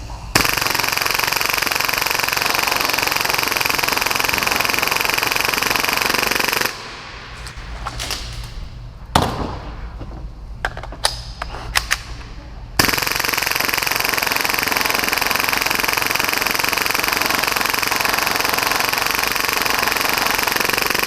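Full-auto Tokyo Marui Hi-Capa gas blowback airsoft pistol firing at about 30 rounds a second in two long unbroken bursts. Between them is a pause of about six seconds holding a few sharp clicks.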